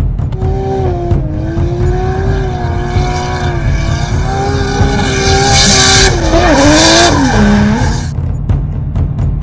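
A racing-car sound effect over a music track with a steady low beat: a car's pitched note wavers, then dips in pitch and cuts off about eight seconds in.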